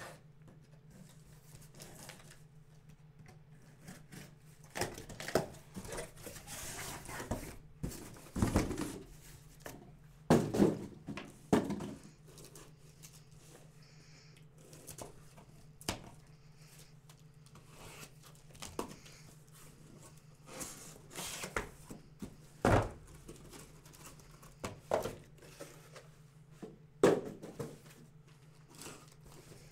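A box cutter slicing through the packing tape on a cardboard shipping case, with cardboard scraping and rustling and several sharp knocks as the boxes inside are handled and lifted out.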